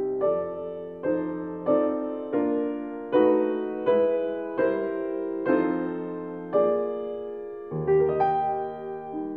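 Background piano music: slow chords struck about once a second, each ringing on and fading before the next.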